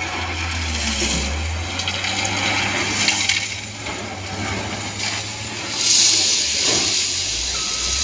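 Wheel loader working a heap of loose material: its diesel engine runs under a continuous crunching, rattling rush as the bucket pushes into and scoops the pile. The loudest part is a rushing hiss about six seconds in.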